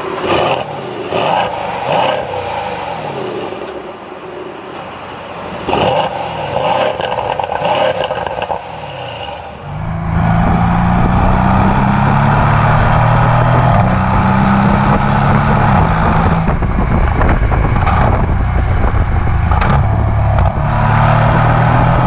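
Mercedes-AMG C63 S's 4.0-litre twin-turbo V8 exhaust, heard at the tailpipes: it starts up and is revved in several short blips while standing still. From about ten seconds in, it runs as a loud, continuous drone while the car drives.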